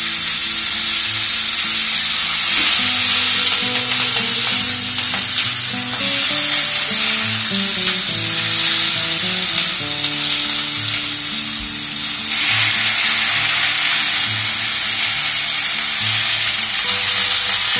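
Leaf-wrapped fish parcels sizzling steadily in a hot, lightly oiled pan, under background music.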